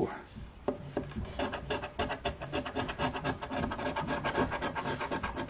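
Scratch-off lottery ticket being scraped by hand, a fast run of short rasping strokes across the coating that starts under a second in.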